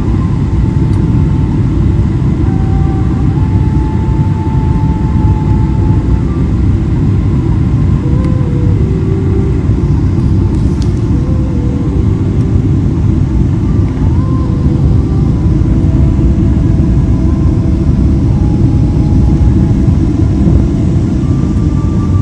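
Steady loud rumble of a Boeing 777-200ER's jet engines and airflow, heard inside the passenger cabin, with faint tones above it that shift in pitch now and then.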